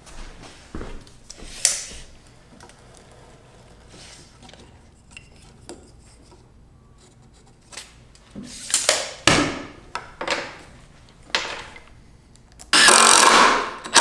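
Scattered clicks and knocks of tools and lumber being handled, then, a little over a second before the end, a cordless impact driver starts driving a screw into a wooden 2x4 crossbar, loud and continuous.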